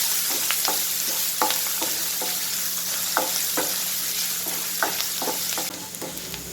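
Chopped ginger and garlic sizzling in hot coconut oil in a pan, frying until they wilt, while a spatula stirs them, clicking and scraping against the pan at irregular intervals. The sizzle drops noticeably near the end.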